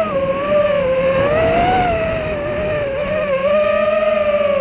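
FPV racing quadcopter's motors and propellers whining, heard from the camera on board; the pitch wanders up and down, rising about a second and a half in and dipping just after three seconds.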